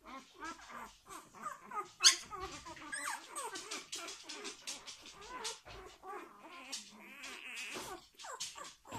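Week-old Labrador Retriever puppies squeaking and whimpering in a continual chorus of short, high cries, with one louder, sharper squeal about two seconds in.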